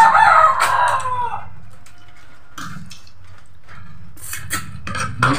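A rooster crows once, a long call that fades out about a second and a half in. Afterwards come scattered light clinks of snail shells and metal plates as they are handled.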